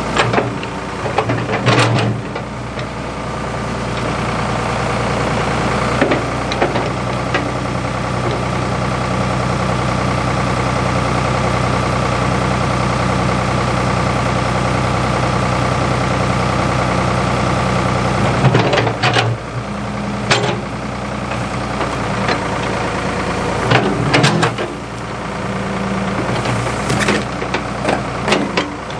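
Ford 555 backhoe's engine running steadily, pulling harder through the middle stretch, with several sharp clanks of the machine working.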